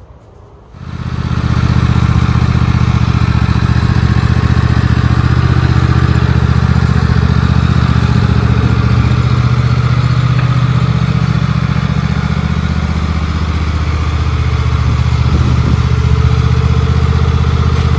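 Cement mixer's Robin engine coming on about a second in, then running steadily at a constant speed.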